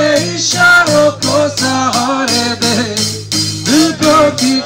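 Live band playing: electric guitar and drum kit, with a man singing into the microphone.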